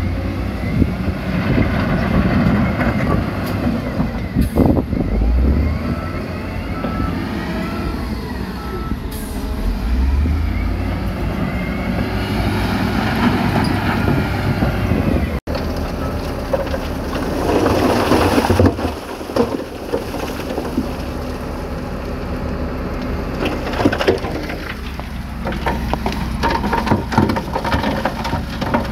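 Heavy diesel engines of dump trucks and earthmoving machines running and revving, rising and falling in pitch. About two-thirds through comes a short, loud rush of loose material, such as a load sliding off a tipping dump bed.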